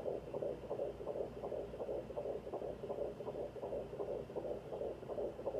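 Baby's heartbeat picked up by a Sonoline B handheld fetal Doppler and played through its speaker: a fast, steady pulsing at about two and a half beats a second, a normal fetal rate and much faster than the mother's own.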